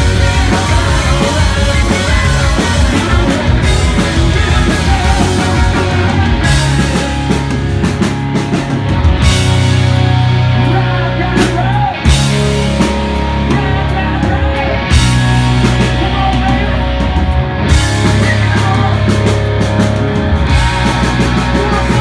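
Live rock band playing electric guitars, bass and a drum kit, loud and dense, with a rock song's held chords and heavy drumming.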